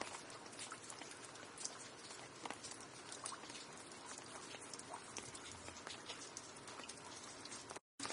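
Rain falling steadily, a soft hiss with many distinct drops ticking and pattering close by. Near the end the sound cuts out for a moment and comes back slightly louder.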